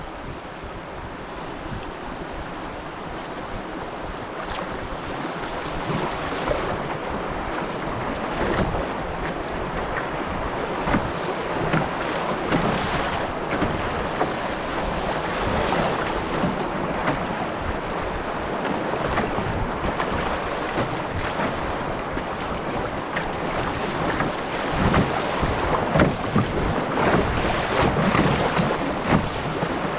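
Whitewater rapids rushing and splashing around a canoe's bow as it runs through them, with wind buffeting the microphone. The rush grows steadily louder and choppier toward the end.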